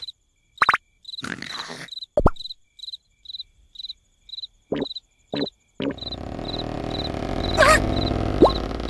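Cartoon sound effects: short plops and squeaks over a steady cricket chirp, about two chirps a second. About six seconds in, a louder steady rushing background sets in, with a sliding squeal and then a quick rising whistle near the end.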